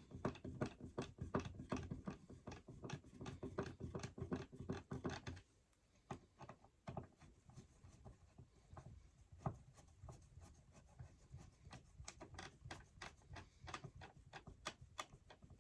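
Close scratching, rubbing and clicking of a screwdriver turning the mounting screws of a wall outlet being set into its box. Dense for about five seconds, then thinning to scattered clicks.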